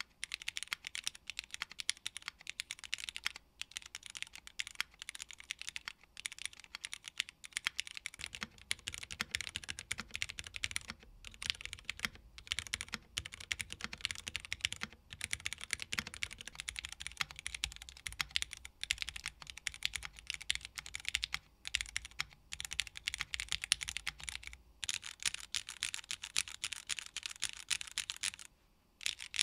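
Fast, continuous typing on a Tofu60 2.0 mechanical keyboard with Cherry MX Hyperglide Black linear switches, a PC plate and PBT keycaps: a dense stream of key clacks broken by a few brief pauses.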